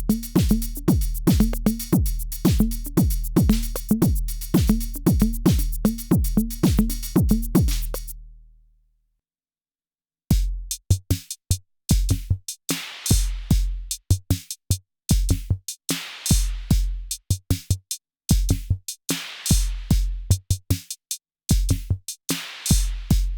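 Two different beats on two analog drum machines, the original Arturia DrumBrute and the DrumBrute Impact. The first is a steady kick-heavy pattern that fades out about eight seconds in. After a short silence, the second beat starts, sparser, with loud snare or clap hits.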